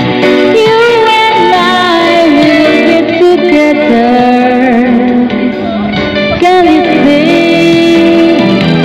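Karaoke backing music with guitar, and a woman singing along into a microphone.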